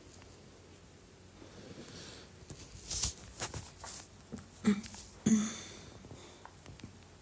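Phone handling noise close to the microphone: a cluster of knocks and rubs about halfway through, with two brief breathy hums or murmurs from the woman holding it.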